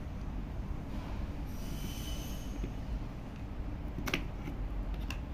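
Small metal parts clicking as the control motor is taken out of a sliding-door actuator by hand, two sharp clicks near the end, with a faint high squeak about two seconds in, over a steady low rumble.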